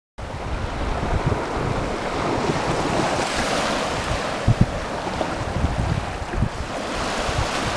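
Small waves washing up onto a sandy beach, the surf swelling and falling, with wind buffeting the microphone in low, uneven gusts.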